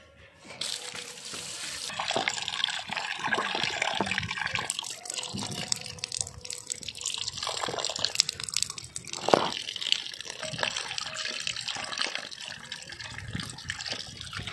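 Water from a tap splashing into a steel bowl as raw goat meat is rinsed and squeezed by hand, with irregular sloshing. It starts about a second in, and one louder splash comes about nine seconds in.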